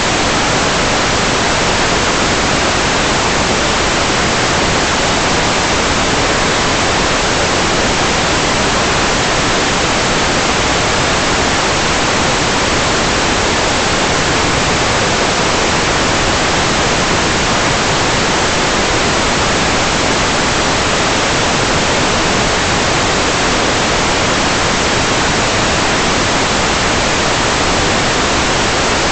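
Steady, loud static hiss with nothing else in it.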